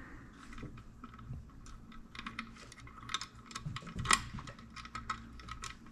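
Irregular light clicks and taps of small metal hardware being handled: a bolt and its fittings worked through a chrome passing-light bracket. A slightly sharper click comes about four seconds in.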